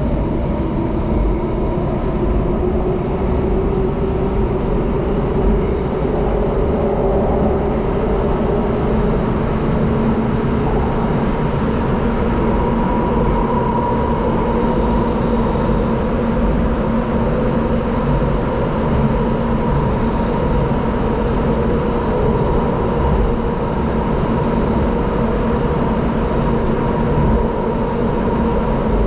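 Singapore MRT metro train running at a steady speed, heard from inside the carriage: a continuous rumble and rush of wheels on rail with a low electric motor whine held at a near-constant pitch.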